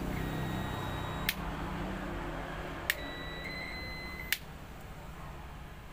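Digital multimeter's continuity beeper sounding a steady high-pitched tone twice, about a second and then about a second and a half, with sharp clicks where the beeps start or stop. The beep signals continuity: the pressure washer's switch, cleaned of ant-carried dirt, now makes contact.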